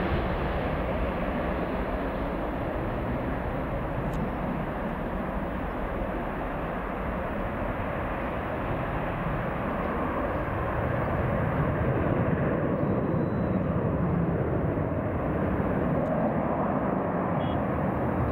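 Boeing 737-800's twin CFM56-7B turbofan engines at takeoff thrust through the takeoff roll, rotation and climb-out: a steady jet roar that grows a little louder past the halfway point.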